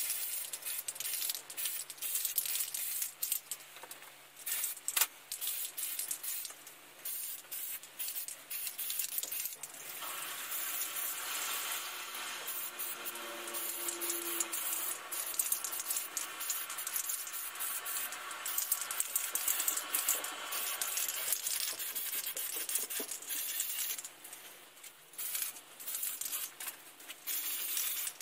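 Aerosol can of spray primer hissing in short bursts, with clicks and the rattle of the can's mixing ball, then a longer steady spray hiss from about ten seconds in until about twenty-two seconds in, and short bursts again near the end.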